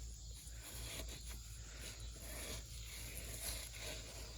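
Faint, irregular rubbing and scraping as the top of a piston is cleaned off inside an open cylinder of a 1950 John Deere M engine, with a steady high insect chirring behind it.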